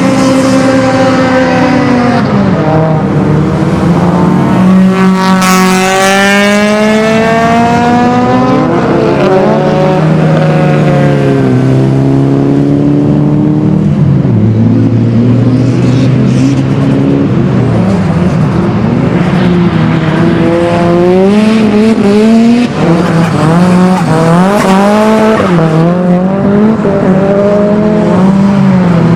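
Several cars running hard on a race circuit, engines revving up and down through the gears, with the pitch sweeping as they pass; tyres squeal at times.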